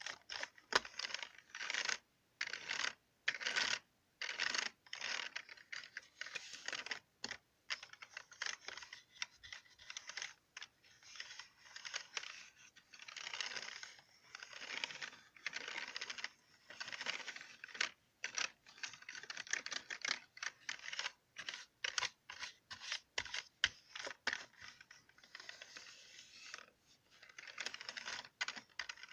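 Computer keyboard keys being tapped and clattered in quick, irregular runs broken by short pauses.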